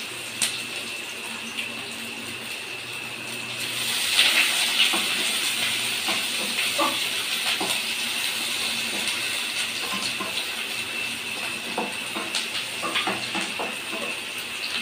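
Chopped onions frying in hot oil in a kadai, a steady sizzle that gets louder about four seconds in, with light scrapes and taps of a spatula stirring them against the pan.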